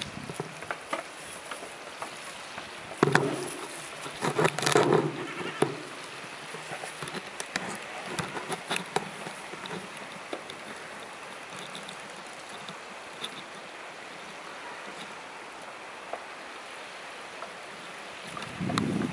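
Outdoor ambience in falling snow: a steady hiss with scattered light ticks and patter. Brief louder noises come about three seconds in and again around four to five seconds in, and wind buffets the microphone near the end.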